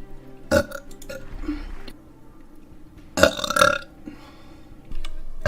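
A woman burping. The loudest belch comes a little after three seconds in and lasts about half a second, with a shorter, fainter sound about half a second in.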